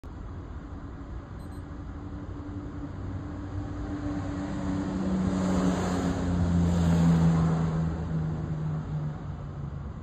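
A motor vehicle driving past: a low engine hum that grows louder to a peak about seven seconds in and then fades, its pitch dropping slightly as it goes.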